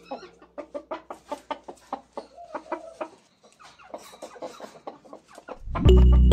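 Red junglefowl rooster clucking in a quick series of short notes, breaking off for a moment about three seconds in and then going on; music comes in near the end.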